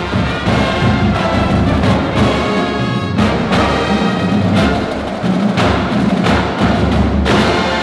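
Marching band playing: brass (sousaphones, horns, trumpets) over marching drums, with several heavy drum hits in the middle.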